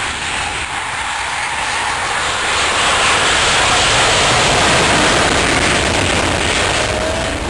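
Panavia Tornado's twin jet engines at takeoff power as it runs down the runway, growing louder to a peak about halfway through as it passes, then easing as it moves away.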